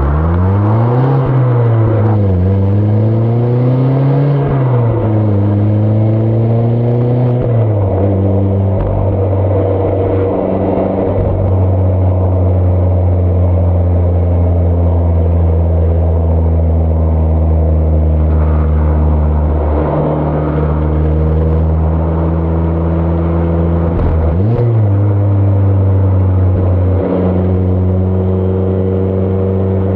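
Mazda ND Roadster's inline-four engine and exhaust accelerating through the gears: the pitch climbs and drops back at each upshift, three times in the first several seconds. It then settles into a steady cruise, with a brief dip and pickup in pitch about three-quarters through.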